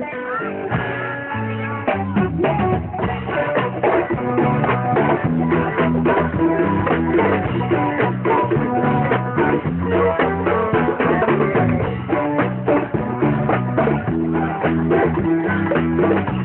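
A live band playing: guitar and bass with a drum kit, the drums coming in and the music getting louder about two seconds in, then a steady beat.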